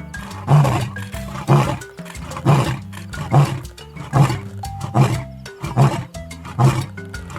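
A lion roaring, with a series of short grunting roars about one a second, over background music.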